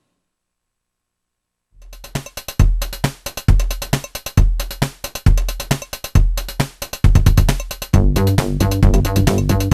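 Silence, then electronic music starts about two seconds in, with a heavy kick drum on a steady beat; a busier pulsing bass line comes in near the end.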